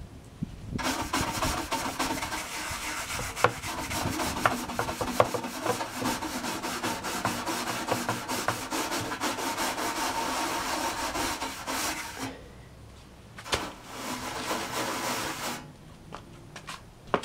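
Scrubbing dirt off a computer case, a steady scratchy rubbing with small knocks that runs for about eleven seconds, stops, and comes back for about two seconds near the end.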